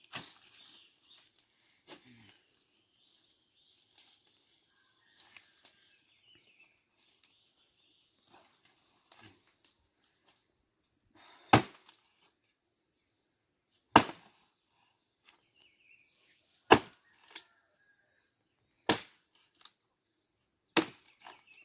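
Five sharp knocks of dry cashew wood being chopped or broken, a couple of seconds apart through the second half, over a steady high insect buzz.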